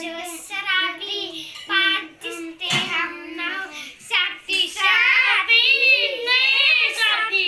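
Children singing a Hindi song together, unaccompanied, with a few hand claps. The singing gets louder about halfway through.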